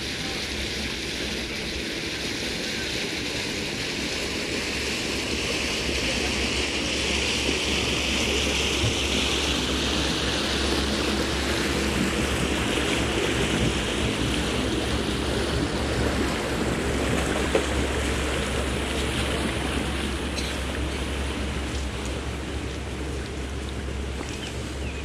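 A cruiser's MerCruiser 7.4 inboard engine running at idle speed, a steady low rumble, under a rushing hiss of water moving along the hull. The rush grows louder through the middle.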